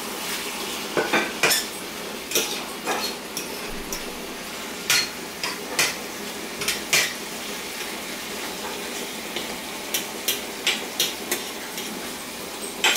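Metal fork clinking and scraping against a stainless steel frying pan as steak pieces with onions and peppers are turned, about a dozen irregular clinks over a steady sizzle of frying.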